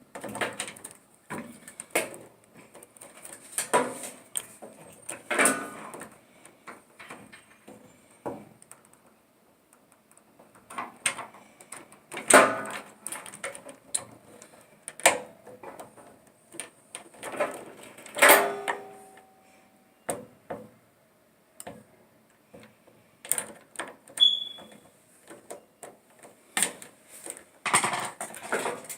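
Irregular knocks, clicks and scraping as dryer panels and parts are handled and worked on by hand during disassembly. One sharp knock about 18 seconds in rings on briefly.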